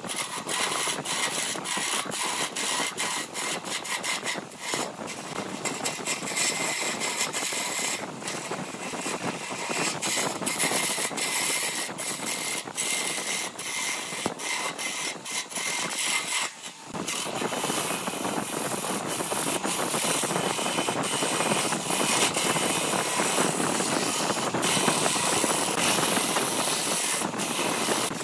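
Wood lathe turning a wood blank while a hand-held gouge cuts into it: a continuous rough scraping hiss of shavings peeling off, peppered with quick ticks. The cut lets up briefly a little past halfway, then goes on.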